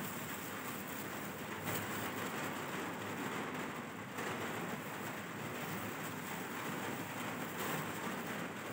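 Heavy rain falling, a steady continuous hiss.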